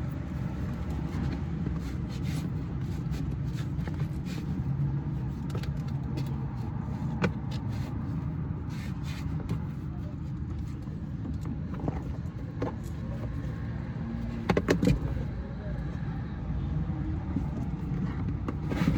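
Steady low rumble, like distant road traffic, with scattered sharp clicks and a quick run of loud knocks about three-quarters of the way through.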